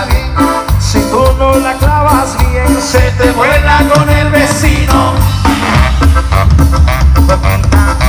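Live cumbia band playing: a steady bass and drum beat with a melody line on top.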